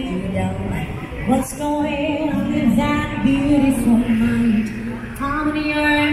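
Music with a woman singing a melody in long held notes that glide between pitches.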